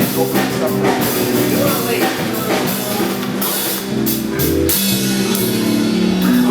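Live band playing: drum kit with cymbals and guitar over held chords, with deep bass notes coming in about four seconds in.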